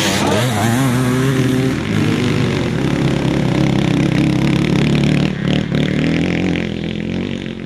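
Enduro motorcycle engine running at high revs, its pitch jumping up and down in the first moment as the throttle is worked, then holding steady and growing quieter over the last couple of seconds as the bike moves off.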